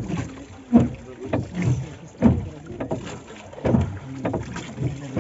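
A rowboat being rowed by hand: the oars knock and creak in their mountings with each stroke, about every second or a little less.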